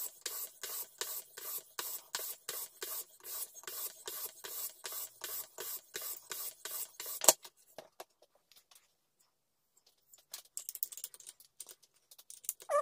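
Whetstone in a rod-guided sharpening jig stroked back and forth along a scissors blade: even scraping strokes, about three a second, that stop about seven seconds in with a sharp click. Then faint, scattered handling sounds.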